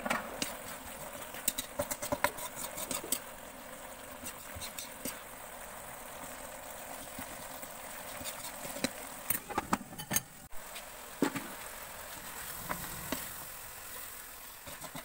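Chillies and herbs frying in oil in an aluminium wok, a steady sizzle, with a metal spatula clicking and scraping against the pan as it stirs, in clusters early on and again about two-thirds of the way in.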